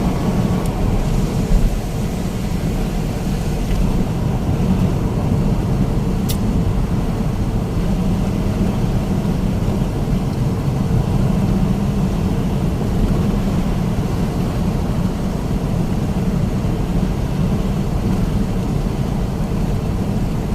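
Steady drone of a moving vehicle heard from inside, engine and travel noise holding even throughout, with a brief high click about six seconds in.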